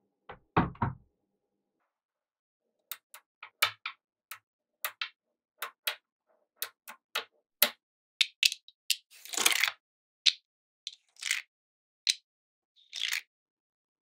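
Small magnetic balls clicking and snapping together as they are handled and set in place, in a string of separate sharp clicks. A heavier thunk comes just under a second in, and a short rattling scrape a little past halfway.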